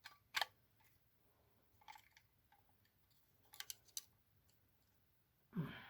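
A few light plastic clicks and taps from a small battery alarm's casing being handled, with near silence between them: one click about half a second in, then small clusters around two and four seconds in.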